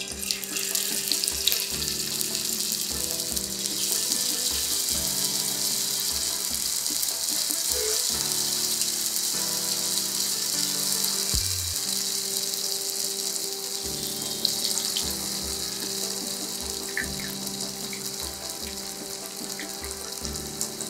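Masala-coated pomfret pieces sizzling in hot oil in a frying pan as they are laid in one after another: a dense, steady frying hiss.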